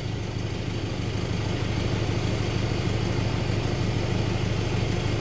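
Idle of a VW Golf Mk7 GTD's 2.0 TDI four-cylinder diesel heard through a Milltek rear exhaust section, a steady low note at an even level.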